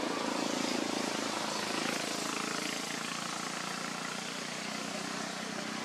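A motor vehicle's engine hum over a steady outdoor background hiss, louder in the first half and easing off after about three seconds.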